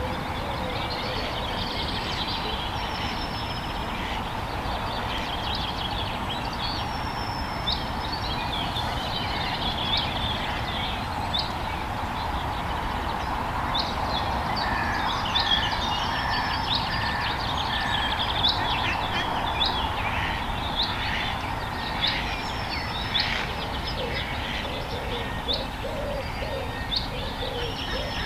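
Several songbirds singing at once, a dense run of short chirps and trills that grows busier about halfway through, over a steady low background noise.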